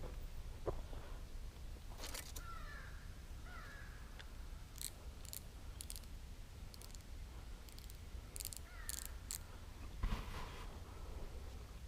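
A bird calling outdoors: a few short chirps that slide downward, in small groups twice. There are scattered sharp clicks, and a dull thump near the end is the loudest sound.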